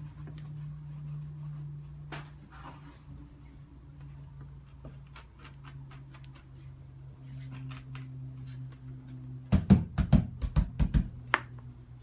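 Ceramic tile being pressed and tapped down by hand, with faint scattered clicks and a steady low hum. About ten seconds in comes a quick run of loud, low thumps as the tile is seated.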